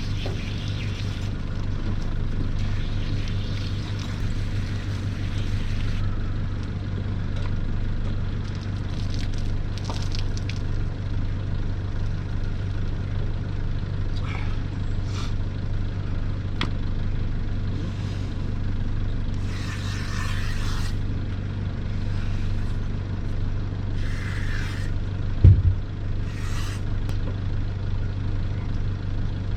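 An engine running steadily with a low, even hum, with one brief thump near the end.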